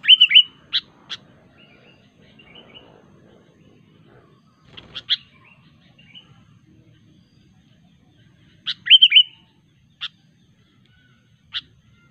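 Sooty-headed bulbul (kutilang) calling: short bright phrases of quick chirping notes, three of them a few seconds apart, with single sharp notes in between.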